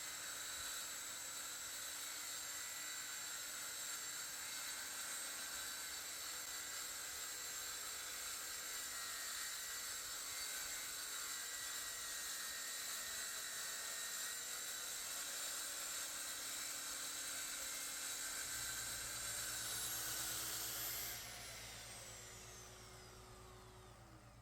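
Electric power tool motor running steadily with a high-pitched whine. Near the end the whine rises briefly, then the motor is switched off and winds down with a falling whine.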